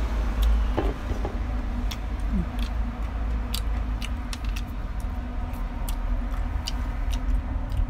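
Wind rumbling on the microphone, with scattered small clicks from a person chewing kumquats close by.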